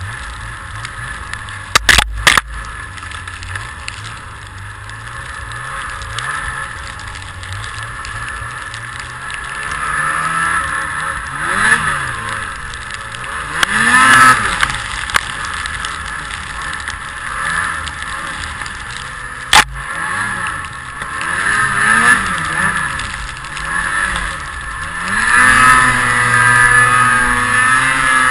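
A motor vehicle's engine revving up and falling back again and again, with a couple of sharp knocks early on and one about two-thirds of the way through.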